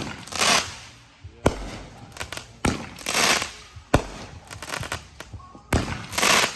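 Fireworks going off: about five sharp bangs a second or two apart, several followed by a brief crackling hiss.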